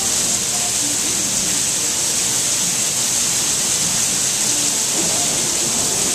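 Heavy rain falling in a steady, even hiss during a severe thunderstorm.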